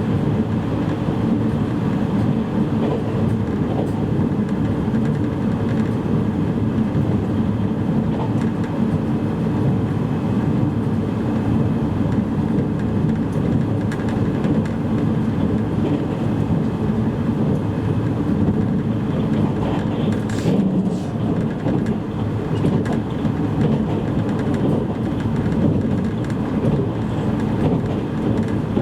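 Steady running noise inside a JR East E653 series electric train car at speed: a constant rumble of wheels on rail, with a short burst of hiss about two-thirds of the way through.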